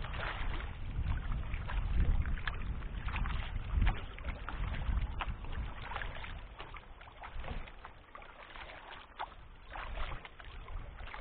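Kayak paddling: short splashes and drips of water off the paddle blades, over a low rumble that eases after about halfway.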